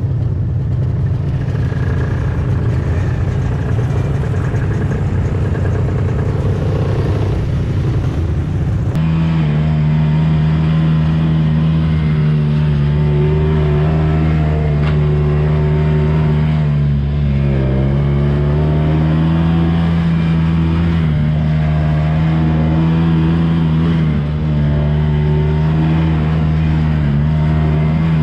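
Yamaha Bravo snowmobile's two-stroke engine running. For about the first nine seconds it is a rough, dense drone; then the sound changes abruptly to a steady, clear engine note while riding along the trail, dipping in pitch briefly twice as the throttle eases.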